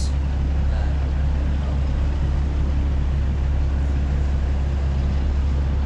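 Steady low engine hum from a tender boat lying alongside a cruise ship's hull.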